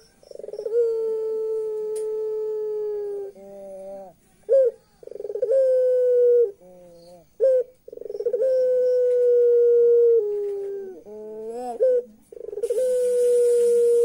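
Puter pelung, a domestic ringneck dove, giving long drawn-out coos, about four in a row. Each opens with a quick rattle, holds a steady note for one to three seconds and drops at the end, with short notes between calls.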